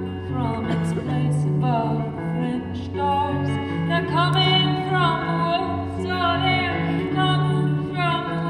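Live amplified folk song: a woman singing over her own acoustic guitar, with wavering held notes about halfway through over a repeating low guitar line.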